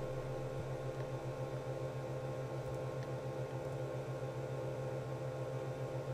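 Steady low electrical hum with a faint hiss: background noise of the recording, with no other clear event.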